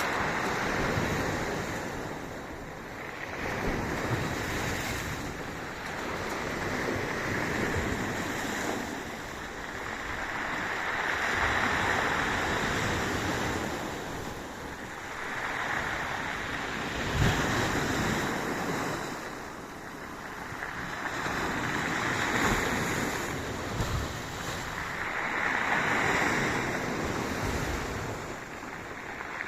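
Sea waves breaking and washing up the shore, the surf swelling and falling back about every four seconds, with a few short low thumps.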